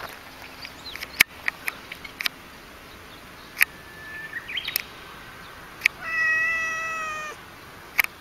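A domestic cat gives one long meow at a steady pitch, lasting over a second, about six seconds in. Several sharp clicks come before and after it.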